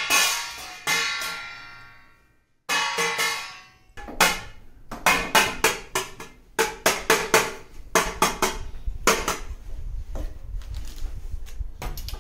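A stainless steel plate being banged, ringing like a cymbal: a few separate clangs that ring out slowly, then from about four seconds a fast, uneven run of clanging strikes.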